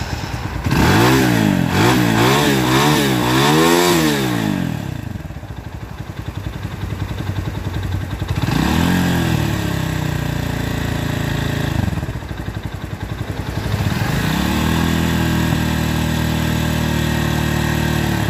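Motorcycle engine running and being revved: four quick throttle blips in the first few seconds, a single longer rev in the middle, then revs held steady near the end before falling back.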